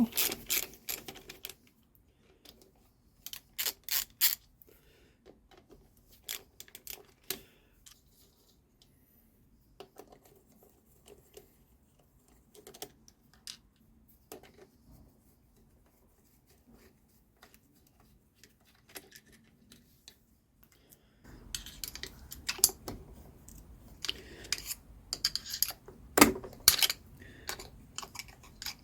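Light, irregular clicks and clinks of metal engine parts and hand tools being handled during an engine strip-down. About two-thirds of the way through, a low steady background noise comes in and the clicking gets louder and busier.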